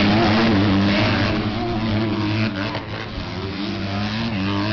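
Motocross bike engines revving, their pitch rising and falling as riders work the throttle over the jumps; the sound eases off somewhat about two and a half seconds in.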